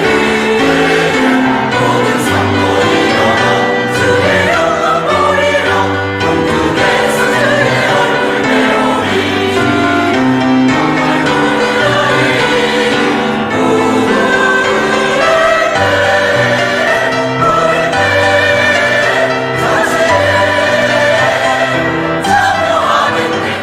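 Church choir singing a gospel hymn in full harmony, loud and sustained.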